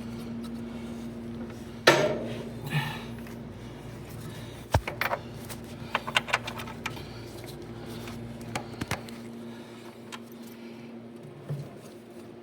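Scattered metal clanks, clicks and rattles of clutch parts being handled and fitted against a tractor flywheel, the loudest knock about two seconds in and a quick run of clicks in the middle, over a steady low hum.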